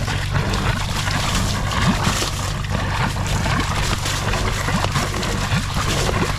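Suction hose of a mud-sucking vacuum unit slurping wet silt and water in irregular splashes, over the steady hum of its engine.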